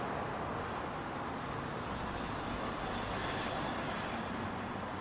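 Steady traffic noise: the even rush of road vehicles passing.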